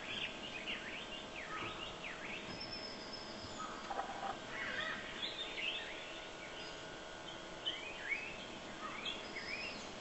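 Many birds calling at once: a dense run of short chirps and whistles sweeping up and down in pitch, overlapping one another, with a thin high steady note now and then.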